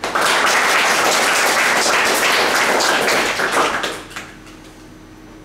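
Audience applauding: a dense burst of many hands clapping that thins out and dies away about four seconds in.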